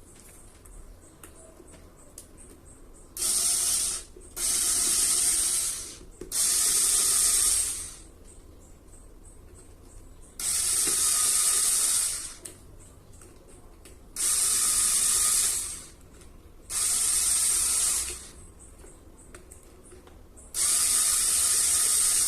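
Cordless electric screwdriver whirring in seven bursts of one to two seconds each, driving screws in to reassemble a fan motor.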